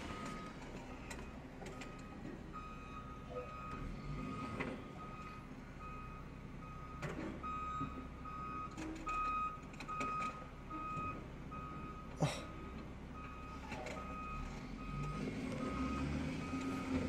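Heavy vehicle's reversing alarm beeping steadily at about two beeps a second, starting a couple of seconds in, over the low rumble of diesel engines from a tow truck and a wheel loader working in the snow. A few scattered knocks.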